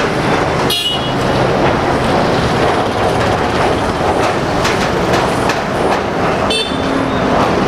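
Boeing 737-500's CFM56-3 turbofan engines passing overhead: a steady, loud jet noise. A brief high-pitched squeak sounds about a second in and again near the end.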